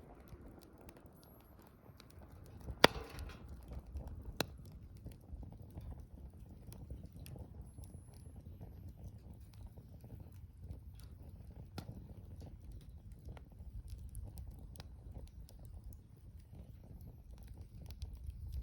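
Wood fire crackling over a low steady rumble, with a single loud sharp pop about three seconds in and a smaller one about a second and a half later.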